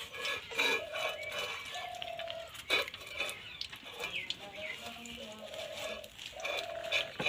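Mustard oil poured from a plastic bottle into a metal kadai on a wood-fired clay stove, with a sharp clink a little under three seconds in as the bottle is handled. Faint animal calls sound in the background.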